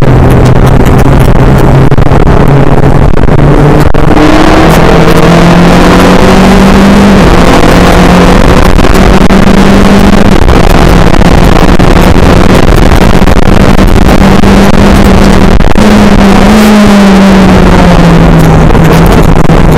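Race car engine running hard under a loud, continuous noise of wind and tyres, driven so loud that the recording is saturated. The engine note steps up about four seconds in and holds fairly steady, then rises briefly and falls away near the end.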